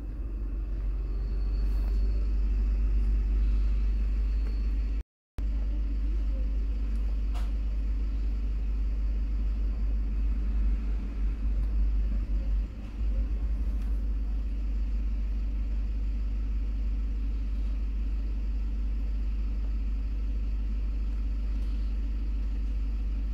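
Steady low background rumble with a few faint clicks. The sound cuts out completely for a moment about five seconds in.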